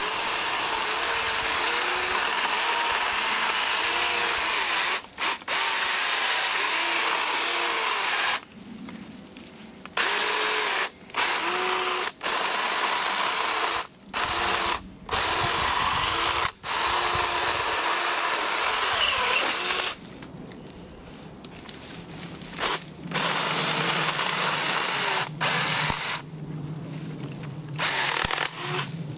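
Black & Decker Alligator battery lopper's small electric chainsaw running in repeated bursts as it cuts through dead branches. It stops briefly several times as the trigger is released between cuts, and the motor's pitch sags now and then as the chain bites into the wood. Near the end the bursts are quieter and shorter.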